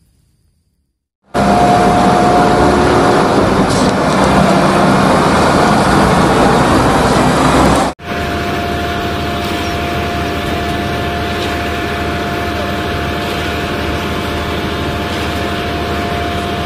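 Heavy diesel engine of a concrete mixer truck running steadily while the truck discharges concrete down its chute. The sound starts abruptly about a second in and cuts abruptly about eight seconds in to a second similar engine sound, which carries a steady whine.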